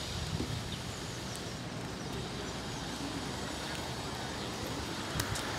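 Steady outdoor street background noise with a hum of distant road traffic, and a couple of faint clicks about five seconds in.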